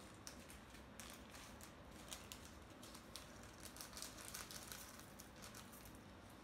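Faint crinkling of a small plastic bag as gold sequins are shaken out of it, with scattered light clicks of sequins dropping into a plastic tub.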